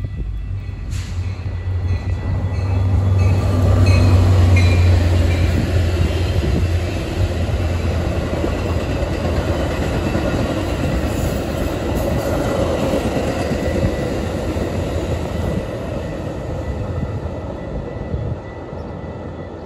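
Metra MP36PH-3C diesel locomotive passing close by, its engine rumble loudest a few seconds in, followed by the steady clatter and rumble of bi-level gallery coaches rolling past on the rails, fading as the train moves away.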